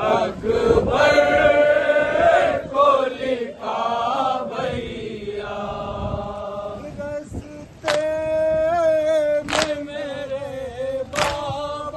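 Men chanting a Muharram mourning lament in unison, one voice leading and holding long notes. In the second half, sharp slaps of hands on chests mark a slow, even beat, about one every second and a half.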